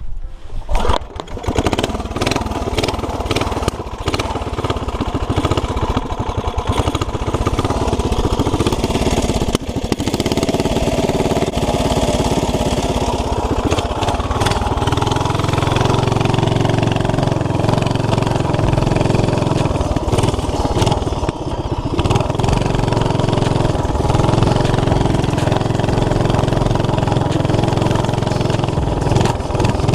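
Old-school 5 hp flathead Briggs & Stratton single-cylinder engine on a mini bike, with a Mikuni-style carburetor, homemade header and the governor removed, starting without choke right away and running. Its note shifts through the first half, then settles into a steadier, deeper run.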